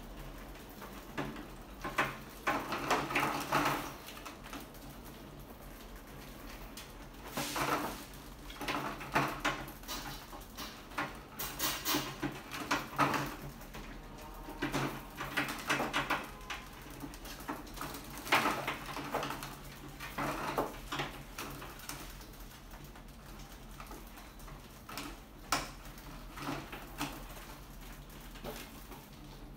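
Rats scrambling over a wire-mesh lid and glass tank: scratching, scrabbling claws and light rattling of the mesh in irregular bursts every few seconds.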